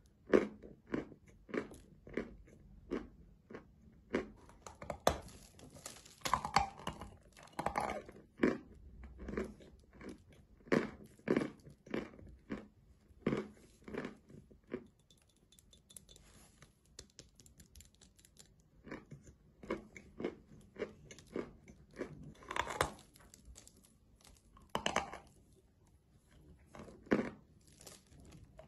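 Close-up chewing and crunching of a large lump of white chalk, a run of short crisp crunches about two a second, thinning out for a few seconds midway.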